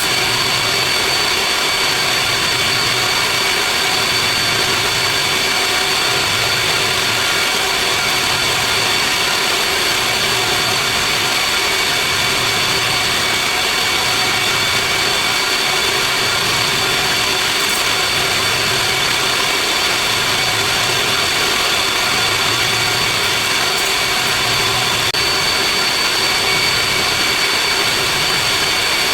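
Mechanical-room machinery around a chiller running steadily: a constant drone carrying several steady high-pitched whines, with a faint low pulsing about once a second.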